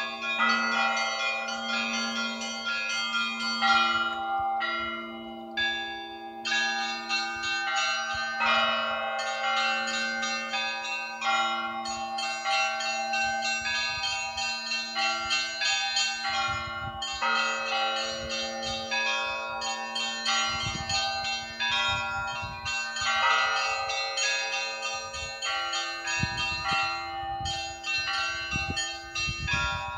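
Russian Orthodox church bell ringing: a low bell struck steadily about once a second under fast, busy peals of small high bells, with brief pauses between phrases. Occasional low rumbles come in during the second half.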